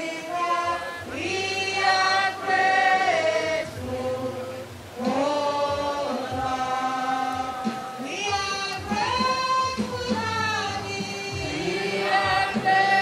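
A group of voices singing together in chorus, holding long notes in phrases of a few seconds with short breaks between them.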